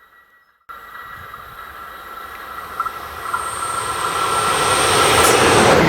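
An electric train approaching on the line, its rail and running noise swelling steadily louder, with thin steady high-pitched whines over it. It starts suddenly after a brief silence under a second in.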